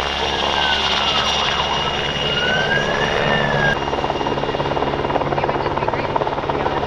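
Twin-turboshaft PZL W-3 Sokol helicopter hovering, its rotor and turbine noise running steadily with a constant high whine.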